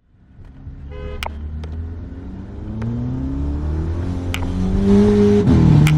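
Skoda Octavia's turbocharged 1.8 TSI four-cylinder engine pulling under acceleration, its pitch climbing steadily, then dropping at a gear change about five and a half seconds in, with a few sharp clicks along the way.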